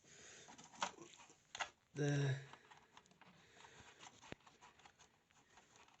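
Quiet handling noise: light clicks and rustling as a CPU cooler is set onto the processor and its thumb screws are fitted. A brief voice sound comes about two seconds in.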